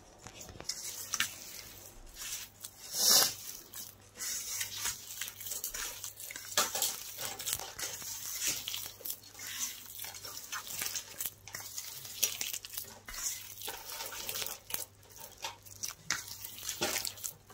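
A hand kneading and squeezing a soaked bread mixture in a stainless steel bowl, making irregular squishing and rustling noises, with one louder burst about three seconds in.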